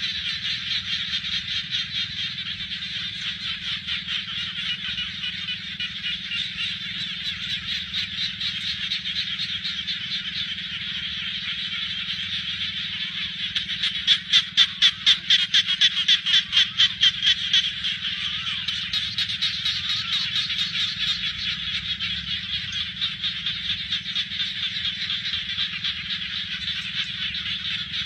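Dense chorus of frogs calling, a continuous high pulsing trill. About halfway through, one nearer frog calls louder for a few seconds, about three or four pulses a second. A faint low rumble runs underneath.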